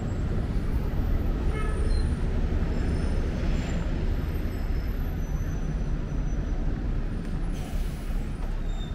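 Steady low rumble of city traffic, with a brief hiss about eight seconds in.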